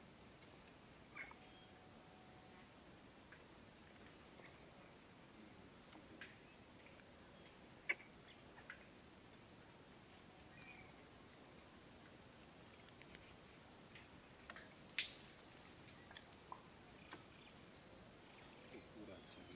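Insect chorus: a steady high-pitched drone, with scattered brief chirps and clicks, including a sharper click about eight seconds in and another at fifteen.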